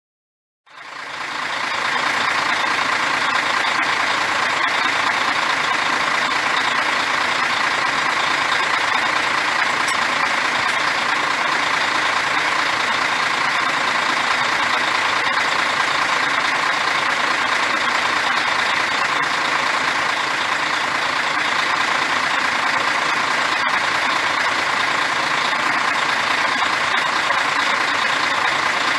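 Diesel bus engine running steadily, fading in within the first second and then holding an even, unchanging level.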